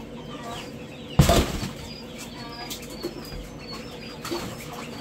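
A chicken's wings flapping in a short loud burst about a second in as it is chased off, with softer flutters later, over the constant high peeping of chicks in the brooders.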